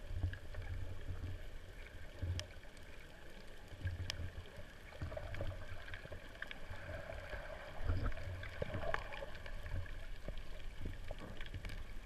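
Underwater ambience picked up by the camera: an uneven low rumble of moving water that swells and fades, with scattered faint clicks and crackles.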